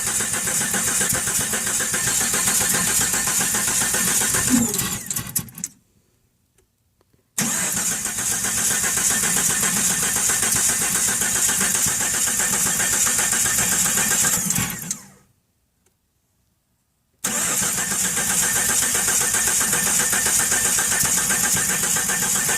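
1997 Jeep Cherokee XJ's starter cranking the engine in three long attempts, each several seconds long and cut off abruptly, with the engine not catching: a crank-no-start despite good spark and fuel pressure.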